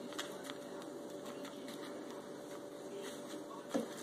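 Light taps and handling noises of raw pork ribs being moved and patted on an aluminium sheet pan as dry rub is dabbed onto them, with one louder knock near the end, over a steady faint hum.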